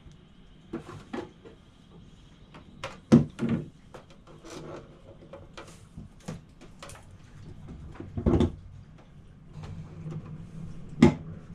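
Scattered knocks and clunks of parts and tools being handled and set down, with louder thumps about three seconds in, about eight seconds in and near the end.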